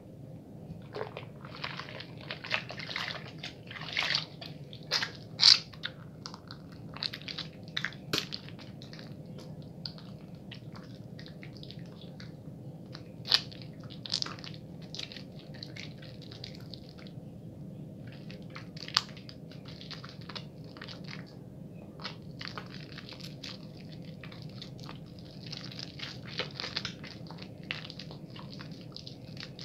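Wet bar soap being lathered quickly by hand: irregular squishing, rubbing strokes with a few sharper clicks.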